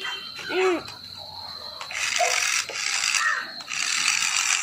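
Small electric motor and plastic gearbox of a toy remote-control jeep whirring as its wheels spin freely in the air, in three bursts with short stops starting about two seconds in.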